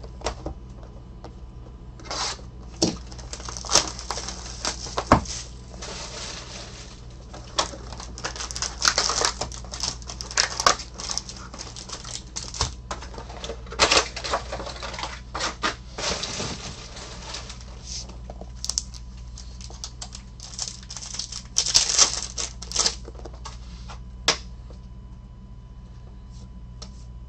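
Panini Recon foil packs of trading cards being torn open and handled: irregular sharp clicks and taps with several bursts of crinkling and tearing foil.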